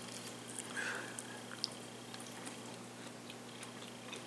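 Faint close-up chewing of a cooked green bean, with a few small crunches and clicks.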